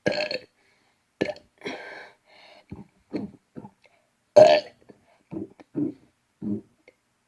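A man burping several times in a row: a burp at the start, the loudest one about four and a half seconds in, with short low sounds between them.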